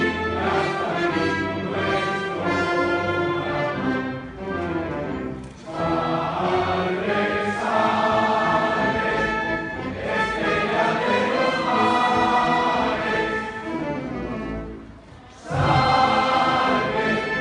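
Choral music with orchestra: a choir singing over an orchestral accompaniment, with two brief lulls between phrases, about five seconds in and near the end.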